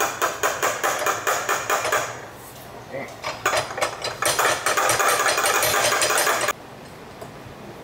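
Ratcheting wrench clicking rapidly in two bursts as bolts at the driveshaft joint are turned. The second burst stops abruptly.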